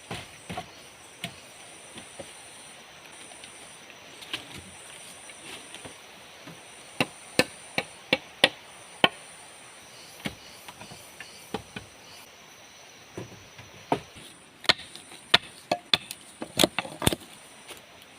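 Sharp blows on wood, like chopping with a blade or knocking with a wooden mallet, coming in irregular runs of several strikes about two a second, over the steady high-pitched drone of forest insects.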